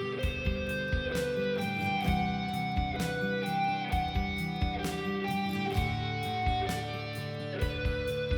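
Instrumental break in a worship song: a melodic electric guitar lead over a drum beat and a sustained accompaniment.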